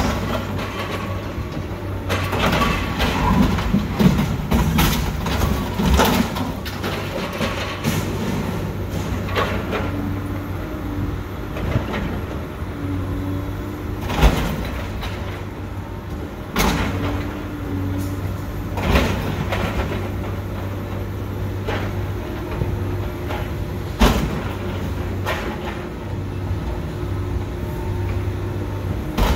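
Diesel engine of a Sennebogen material handler running steadily while its grapple tears apart an armored truck's steel body, with metal crunching and scraping and sharp clanks of steel on steel every few seconds.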